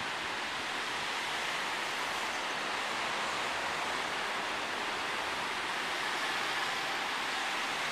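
Steady rushing noise of slow street traffic at a road junction, an even hiss with no horns or distinct engine notes standing out.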